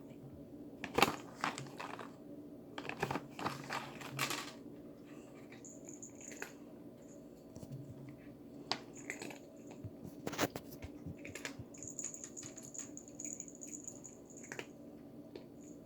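Cat-treat bag crinkling and rustling in short bursts as it is pawed and pulled at, loudest about a second in and again around three to four seconds in. A steady low hum runs underneath.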